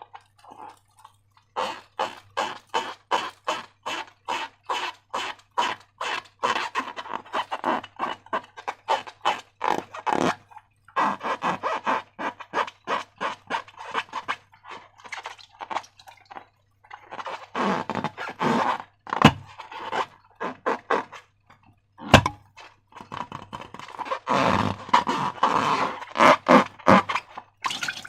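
Slime being squeezed and worked by hand, making rapid sticky squelches and crackles, about three a second, in runs broken by short pauses.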